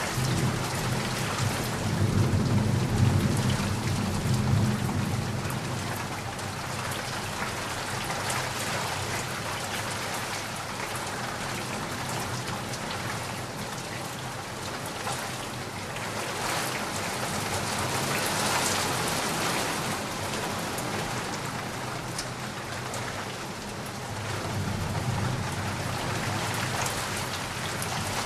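Heavy rain falling steadily, with low rolls of thunder rumbling about two seconds in and again near the end.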